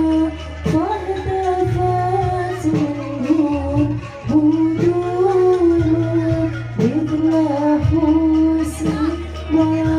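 A kidung, Javanese ceremonial sung verse, with one voice holding long, wavering notes over steady low accompaniment. It is played live through a hired ABM Audio sound system.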